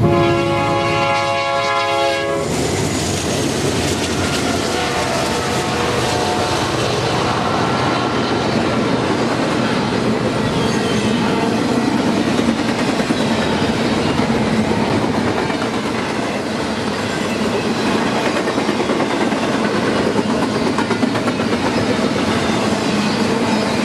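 A diesel locomotive's multi-chime air horn blows a chord for about two seconds and cuts off sharply. Then comes the steady, loud noise of a BNSF freight train's cars rolling past.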